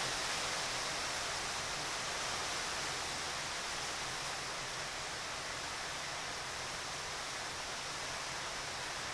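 Steady, even hiss of outdoor background noise, with no separate clicks or bites standing out.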